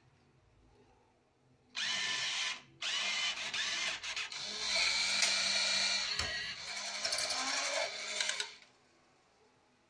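Smiley NV9 USB banknote acceptor's transport motor running as it draws in a banknote and carries it through, starting about two seconds in, breaking off briefly, then running on until it stops near the end.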